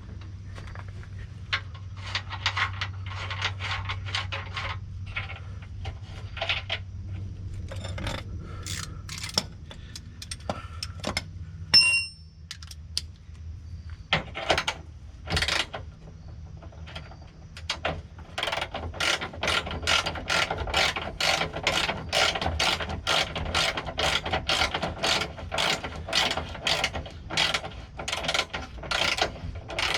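Ratchet clicking in repeated runs, the longest a steady run of about three clicks a second in the second half. A single sharp metallic clang rings out near the middle.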